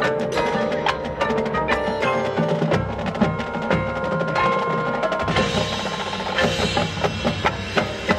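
High school marching band playing its competition field show: many sharp percussion strikes over held chords from the winds.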